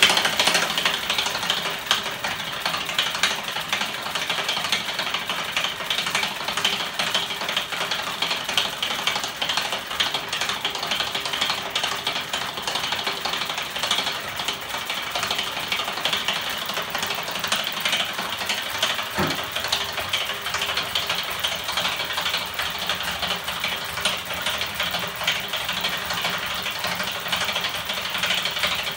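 Homemade magnet-and-electric-motor ornithopter engine running steadily, its spinning arms and bike ratchet making a fast, continuous rattling clatter.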